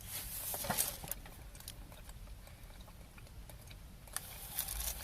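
A person chewing a chewy toffee, a Quality Street Toffee Penny, with soft scattered clicks.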